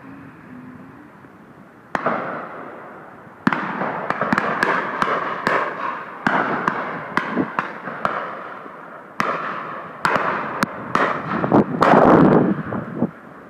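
Shotguns firing on a driven game shoot: a rapid scatter of about two dozen shots from several guns, each a sharp crack with a short echoing tail. The first comes about two seconds in, and the shots bunch up and are loudest near the end.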